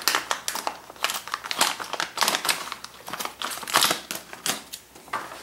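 Clear plastic packaging bag crinkling and rustling in the hand as it is handled and turned over, in a quick, irregular run of crackles.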